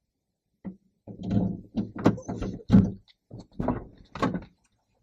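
A quick, irregular series of thuds and knocks, about seven of them over four seconds, starting after a moment of dead silence.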